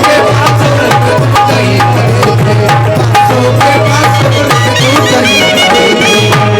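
Instrumental interlude of a live devotional song: fast hand-drum rhythm with a steady bass note under a melody line of short held notes that step up and down.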